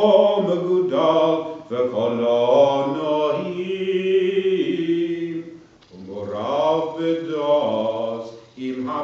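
Male cantor singing Hebrew liturgical chant solo, with no accompaniment. His melody bends and slides, holds one long note in the middle, breaks off briefly about six seconds in, then goes on.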